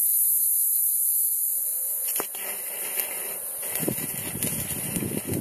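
A steady high hiss for about two seconds, then, after a sudden change, the irregular crackle and sputter of an arc welder tacking a steel scaffold pole.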